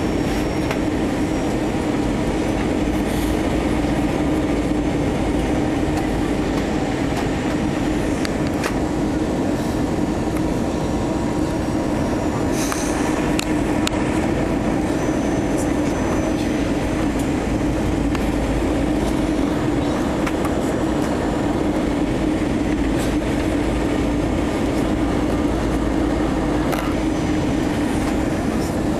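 Steady cabin drone of an Airbus A321 on its descent toward landing: engine and airflow noise with a strong low hum, heard from inside the passenger cabin.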